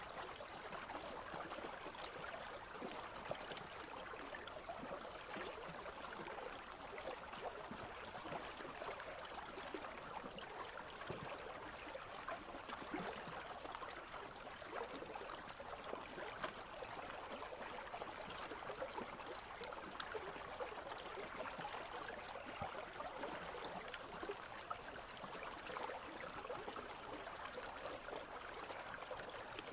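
Country stream flowing steadily, an even babble of running water.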